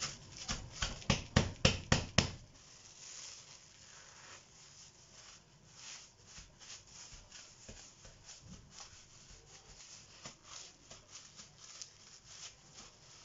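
Crumpled plastic bag being handled and pressed, crinkling. There are about eight loud sharp crackles in the first two seconds, then quieter, uneven rustling.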